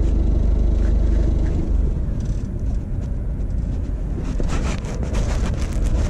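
Small white van's engine idling close by, a steady low rumble. Some rustling and knocking noises come near the end.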